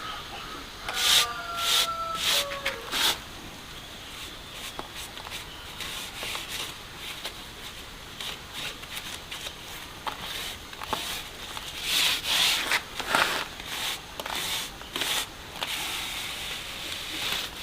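A plastering trowel scraping and rubbing mortar across a wall in irregular strokes, some louder and sharper than others.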